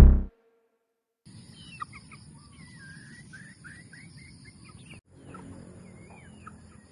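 Young gamefowl chickens chirping and peeping faintly, a string of short calls that slide up and down in pitch, over a steady high hiss.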